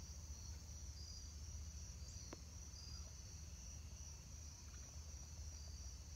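Steady, high-pitched chorus of insects, with a low rumble beneath and one faint tick a little over two seconds in.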